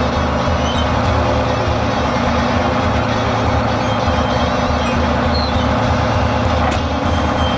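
Fire truck engine running steadily at idle.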